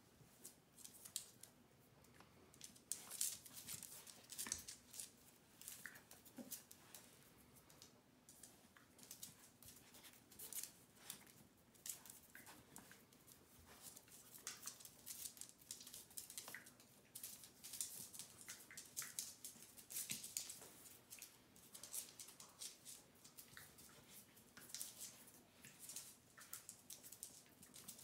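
Two small dogs play-fighting on a hard floor: quiet, irregular clicking and scratching of claws scrabbling and scuffling on the floor as they wrestle.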